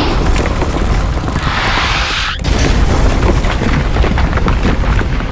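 Loud, continuous low rumbling with dense clattering crashes, a heavy boom-like sound-effect bed, and a short falling whoosh about two and a half seconds in.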